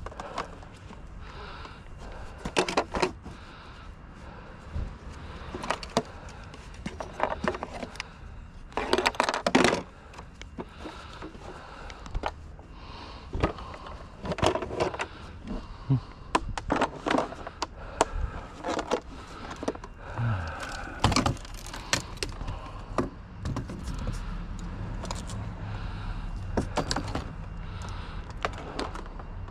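Items from a curbside junk pile being grabbed, shifted and tossed: an irregular string of knocks, clatters and rustles. A low steady rumble joins in near the end.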